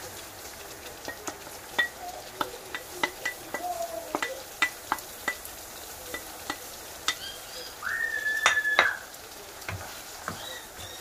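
Wooden spatula scraping sauce out of a ceramic bowl and tapping against the bowl and wok in irregular knocks as canned sardines are added to simmering sambal, over a faint sizzle. About eight seconds in, a steady high whistle-like tone sounds for about a second.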